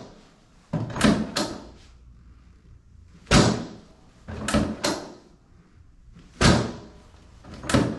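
Chiropractic drop table: its spring-loaded sections clack down sharply, one to three snaps at a time, in clusters a second or two apart.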